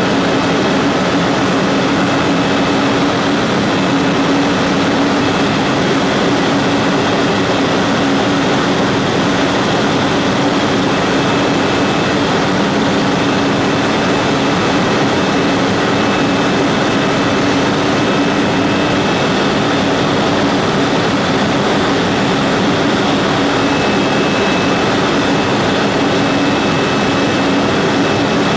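Aerospatiale helicopter in cruise flight, heard from inside the cabin: the turbine and rotor make a loud, steady drone with a thin high tone above it.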